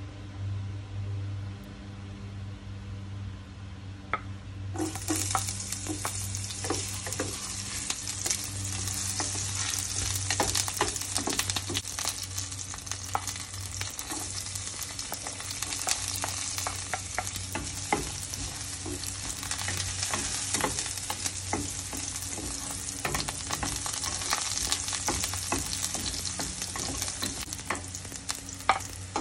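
Chopped ginger sizzling in hot oil in a pot. The sizzle starts suddenly about five seconds in and goes on steadily, with clicks and scrapes of a wooden spatula stirring it. Before that there is only a low steady hum.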